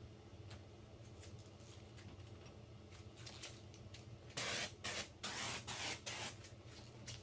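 Griot's Garage compressed-air foam sprayer hissing in four or five short trigger bursts, starting a little past halfway, as it lays rinseless wash foam onto the truck's paint.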